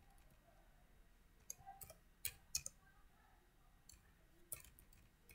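Faint computer keyboard keystrokes: a handful of separate, irregularly spaced clicks as a short line of text is typed.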